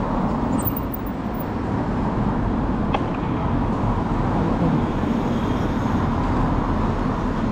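Steady street traffic noise: a continuous rumble of passing road vehicles, with a faint click about three seconds in.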